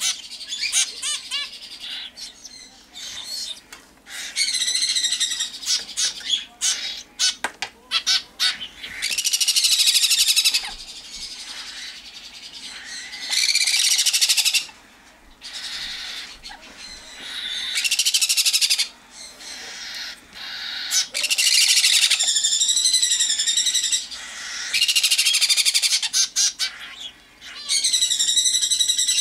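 Baby sun conures and cockatiels food-begging while being hand-fed formula: repeated high, wavering squealing calls in bursts of one to three seconds, every few seconds, with short chirps and clicks between.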